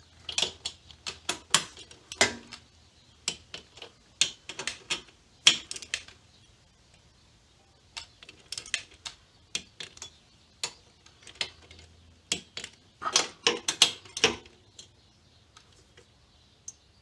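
Torque-wrench ratchet clicking in four bursts of irregular strokes as a cylinder-head bolt is turned. The bolt keeps turning without coming up to torque because its cheap thread-repair coil is pulling out of the head.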